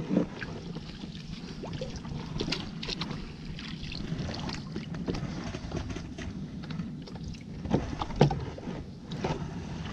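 Paddling a small fiberglass boat: the wooden paddle splashes through the water in strokes, knocking now and then against the hull, over a steady low rumble. Two harder knocks come near the end.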